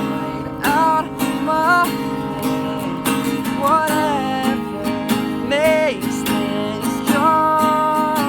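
Acoustic guitar strummed steadily under a singing voice, with notes that slide up and are held long.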